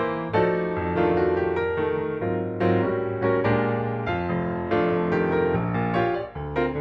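Background music: a gentle piano piece, with chords and notes struck at an even pace.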